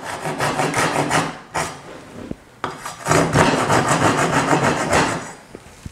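Handsaw cutting through a wooden window sill board in quick back-and-forth strokes, finishing the corner of a notch cutout by hand. The sawing pauses for about a second near the middle, then resumes.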